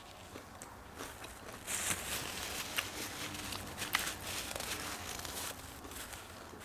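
Close-up eating sounds: crunchy fast food being chewed, with small clicks and crackles scattered through.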